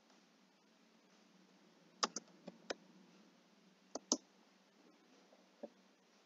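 Scattered computer keyboard keystrokes during typing: four clicks about two seconds in, two more about four seconds in and a softer one near the end, over faint room hiss.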